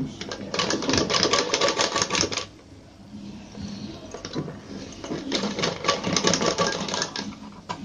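Sewing machine running in two spells of rapid, even ticking, each a couple of seconds long with a pause between, as it stitches a line down the centre of a fabric dori (braided cord).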